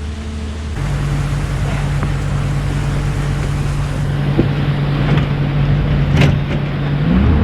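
Excavator's diesel engine running steadily, with a few knocks, then rising in pitch near the end as it revs up.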